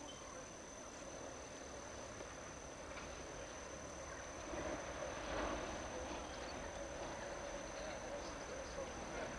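Faint outdoor background noise with a steady high-pitched whine, getting a little louder about halfway through.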